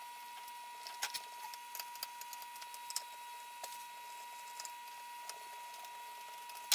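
Faint, scattered clicks and ticks of a Phillips screwdriver backing out the screws that hold the woofer in a small acoustic amplifier, over a faint steady high tone.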